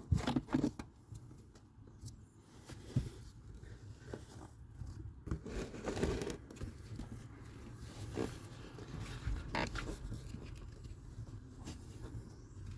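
Faint, scattered scrapes, rustles and a few light knocks of hands handling things in a car footwell.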